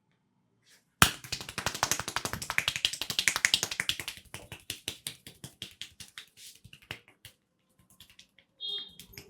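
Rapid run of sharp hand strikes from a barber working a customer in a percussive Indian head massage. It starts abruptly about a second in, fast and loud at first, then slows and fades, stopping about seven seconds in.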